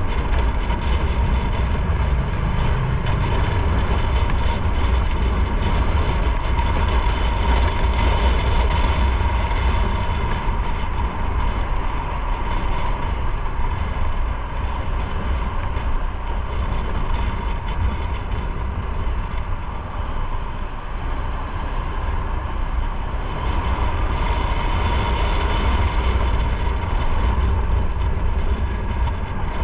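Motorcycle under way at a steady speed: the engine running with loud wind rush on the microphone and a steady low rumble, and a faint whine that holds one pitch throughout.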